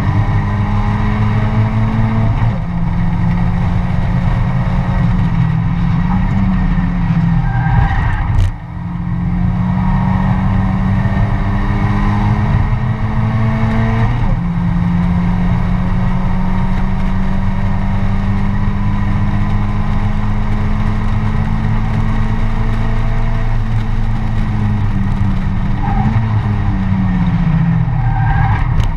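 Mazda MX-5 race car's four-cylinder engine running hard under load, heard from inside the cockpit. The revs drop sharply at gear changes about two and fourteen seconds in, with a brief lift off the throttle about eight seconds in, and fall away over the last few seconds as the car slows.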